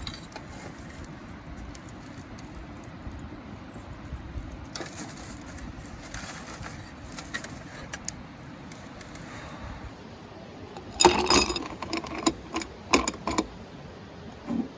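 Metal objects clinking and clattering in a quick cluster of sharp knocks about eleven seconds in, with another clink near the end, over a steady background hiss.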